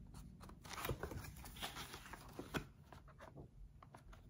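Soft rustling and crinkling of paper as the pages of a large book are turned and handled, with faint clicks and a few louder rustles in the first three seconds.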